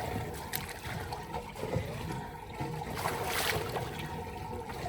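Water in an outdoor hot spring pool: a steady trickling and sloshing, swelling briefly a couple of times.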